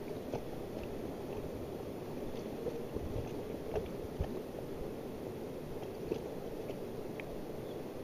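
Rushing river water swishing against the side of an inflatable raft, with a couple of light splashes or knocks about halfway through.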